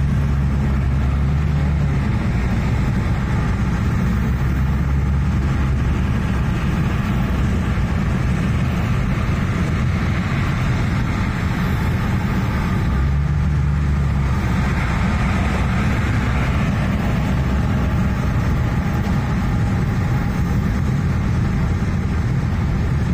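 Steady road and engine noise heard inside a moving car's cabin: a continuous low drone with tyre hiss over it.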